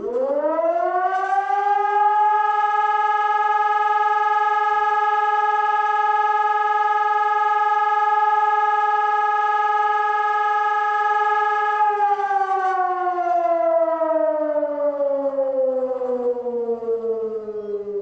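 Hörmann ECI 1200 electronic civil-defence siren sounding one tone of the fire-alarm signal. The pitch rises quickly, holds steady for about ten seconds, then falls slowly.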